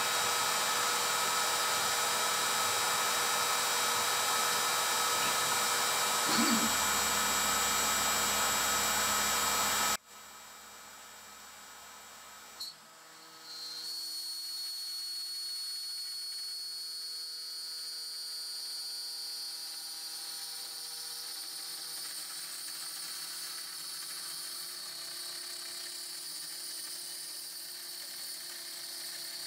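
Makita compact router on a Shapeoko CNC spinning at its slowest speed setting: a steady whine with several pitches. About ten seconds in the sound drops off abruptly, and after a click it comes back quieter with a high steady whine while the 1/8" end mill works the acrylic sheet.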